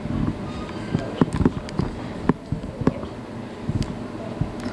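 Scattered sharp clicks and knocks, about a dozen at irregular intervals, over a steady low rumble.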